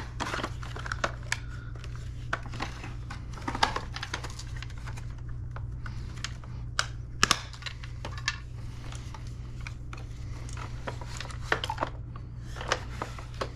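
Irregular plastic clicks and knocks as the parts of a Shark DuoClean vacuum's floor-head housing are handled and pried apart, over a steady low hum.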